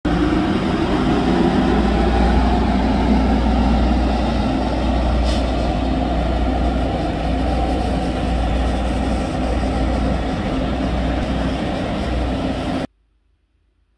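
Steady loud rumble of heavy road vehicles, with a brief high hiss about five seconds in. It cuts off suddenly near the end.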